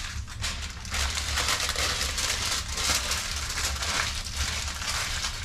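Aluminium foil crinkling and crackling as it is twisted shut around a foil-wrapped fish, starting about a second in.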